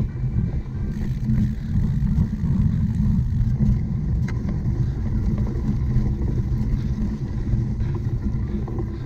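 Cyclocross bike being ridden over rough ground: a steady low rumble of wind buffeting and tyre noise, with a few faint clicks and rattles.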